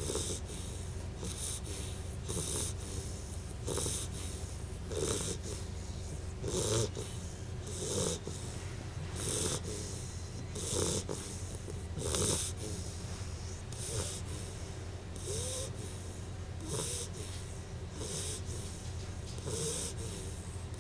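Rottweiler puppy snoring in her sleep, a snore on every breath about once every second and a half.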